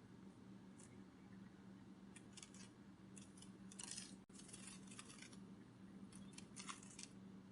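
Butterfly wing-flutter sound effect: soft, crisp papery flutters in short irregular clusters over a faint steady hum, heard quietly.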